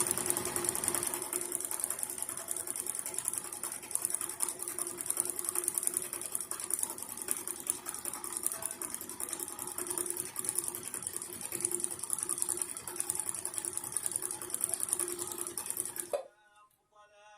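Brother Riviera 110 household sewing machine running steadily as it sews a fine, close zigzag like embroidery stitching, then stopping suddenly near the end.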